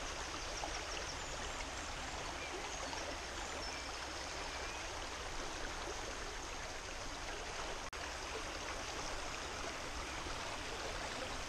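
Small stream flowing: a steady rush of water rippling over the shallows.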